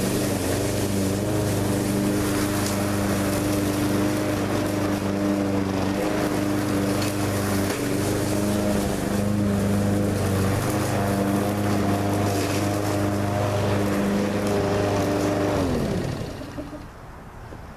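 Troy-Bilt TB360 walk-behind lawn mower engine running steadily under load while bagging leaves and clippings. Near the end its pitch falls and it winds down and stops.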